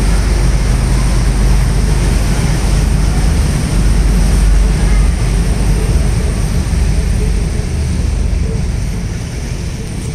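River tour boat under way: a steady low rumble with a noisy hiss over it, easing slightly near the end.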